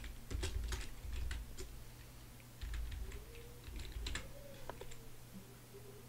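Computer keyboard keys clicking as text is typed, in two short runs of keystrokes, over a faint steady hum.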